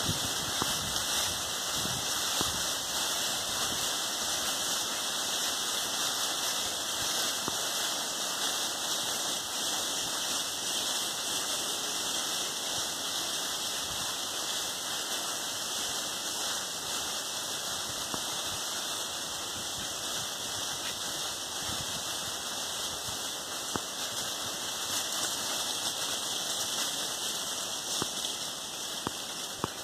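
Steady rustling and crunching of dry fallen leaves under the hooves of a herd of Highland cattle walking through them, easing off a little near the end as the herd moves past.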